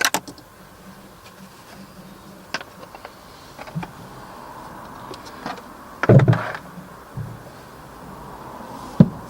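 Plastic steering-column shroud halves being handled and pulled apart: scattered clicks and knocks, with a louder clattering bump about six seconds in and a sharp click near the end.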